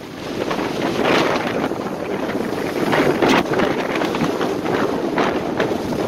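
Strong wind buffeting the microphone, gusting unevenly, over rough sea surging and splashing against a concrete seawall.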